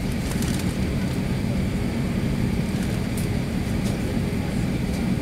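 Airbus A380 jet engines running at idle, heard inside the cabin as a steady low rumble with a faint high whine. A few faint clicks sound over it.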